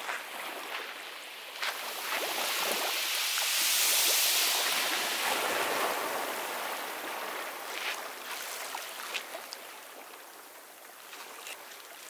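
Ocean surf breaking on a beach: the rush of a wave swells up about two seconds in, is loudest around four seconds, then slowly fades as the water washes back.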